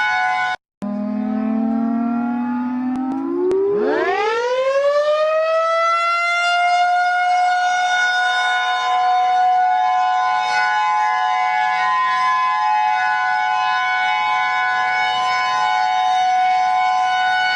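Civil-defense-style emergency alert siren: a steady chord of several tones cuts out briefly under a second in, then returns as a low tone that winds up over a couple of seconds into a steady, high multi-tone wail that holds.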